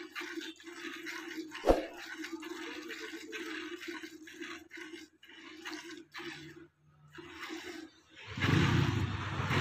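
A cow being milked by hand: streams of milk squirting into a steel pot, about two squirts a second. About eight seconds in, a louder, rough noise lasts around two seconds.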